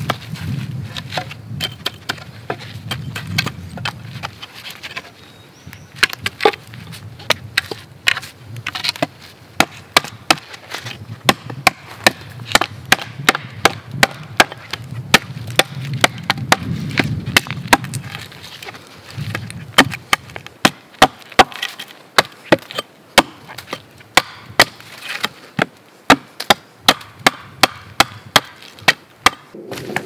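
Dry firewood being chopped and split: a long series of sharp wooden strikes, coming in runs of about two a second with short pauses between.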